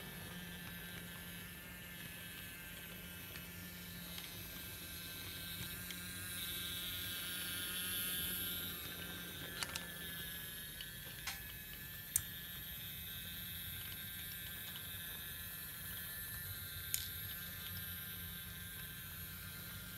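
Small electric motor and gears of a battery-powered BRIO Old Steam Engine toy train running steadily along plastic track, a faint whirring hum that swells briefly. A few sharp clicks come through as it runs.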